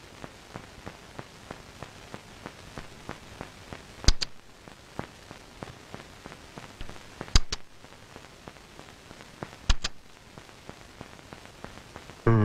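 Faint, steady crackle of small clicks with a few sharper pops, three of them doubled, about four, seven and a half and ten seconds in.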